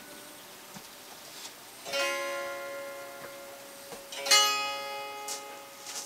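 Homemade scrapyard guitar strummed twice, about two seconds apart, each chord ringing on and slowly fading.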